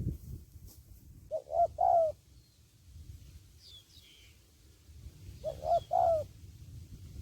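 Spotted dove cooing: a three-note phrase, the last note longest, given twice about four seconds apart over a low rumble. Faint high chirps from a smaller bird come in between.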